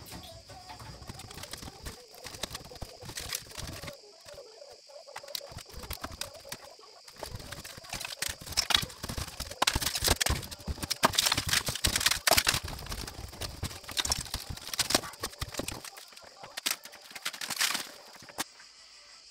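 Dry reed-cane ceiling matting being torn down from roof beams: brittle canes snapping, crackling and rustling, busiest in the middle, with a steady high buzz underneath.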